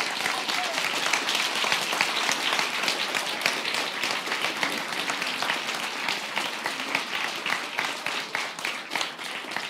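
Audience applauding: a large crowd clapping steadily, thinning a little near the end.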